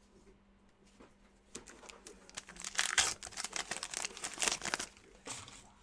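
The plastic wrapper of a 2019-20 Hoops basketball card pack being torn open and crinkled by hand. The crackling comes as a dense run from about two to five seconds in.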